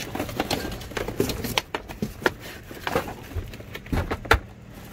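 Handling noise: a string of sharp knocks, clicks and rattles as household items and cardboard in a box are moved about, the loudest knock a little after four seconds in.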